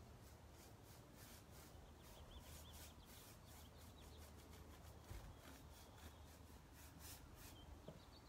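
Faint, quick swishes of a paintbrush working clay paint into the wooden surface of a dresser, about three strokes a second.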